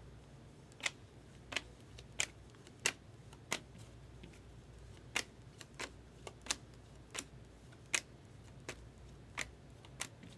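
Baseball trading cards from a 2020 Bowman Draft Sapphire pack being moved one at a time through a stack in the hand. Each card gives a light click or snap, about fifteen in all, at an uneven pace of one or two a second.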